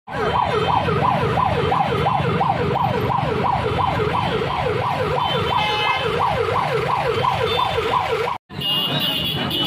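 Electronic vehicle siren wailing in a fast yelp, its pitch sweeping up and down about three times a second, then cutting off abruptly near the end.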